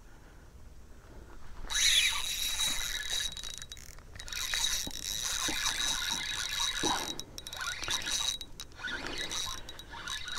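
Spinning fishing reel cranked steadily, starting about two seconds in, its gears whirring as a small fish is reeled in.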